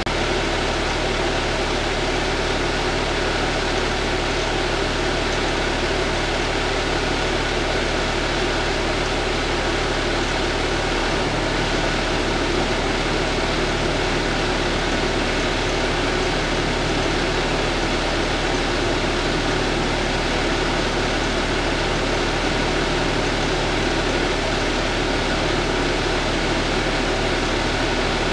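Parked fire apparatus idling, heard from inside the cab: a steady, even engine and fan hum with no change.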